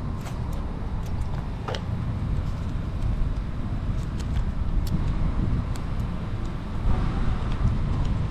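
Steady low outdoor background rumble with a few light clicks and taps.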